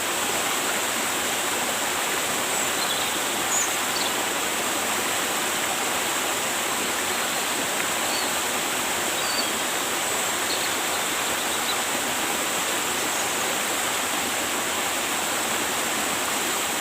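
River water rushing steadily, an even hiss with no pauses, with a few faint short chirps over it.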